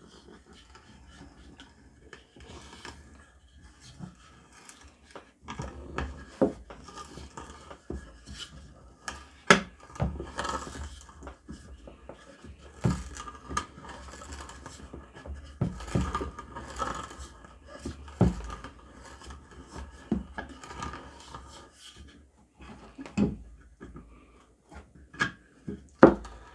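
A hand-turned spade bit with a screw tip boring into soft pine, scraping and rasping as it cuts. Irregular clicks and knocks run through it.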